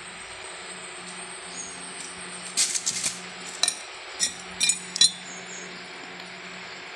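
About eight sharp, ringing clinks come in quick, uneven succession from about two and a half seconds to five seconds in. They sit over a steady low hum.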